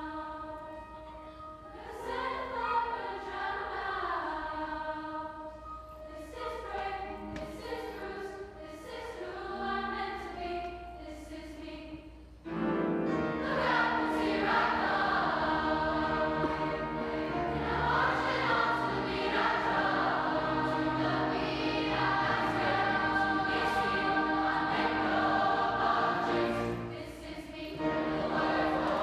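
A large youth choir singing in parts. About twelve seconds in the singing swells suddenly to a louder, fuller sound with low notes underneath, and it drops back briefly near the end.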